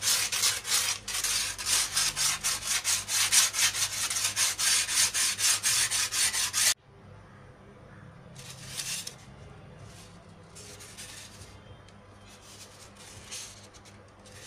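Edge of a thermocol (expanded polystyrene foam) sheet being rubbed smooth by hand, in quick, even back-and-forth strokes, about four a second. The strokes cut off suddenly about seven seconds in, leaving only faint scuffs of the foam pieces being handled.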